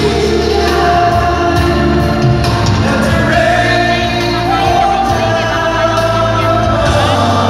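Pop song sung live by several singers into handheld microphones over a loud backing track, with long held notes and a steady bass line.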